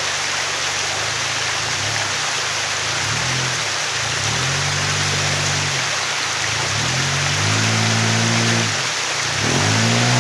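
Lifted Toyota Hilux Surf's engine revving in about four short blips, each rising and falling in pitch, the last and longest near the end, as the truck crawls over boulders. A steady rush of stream water runs under it.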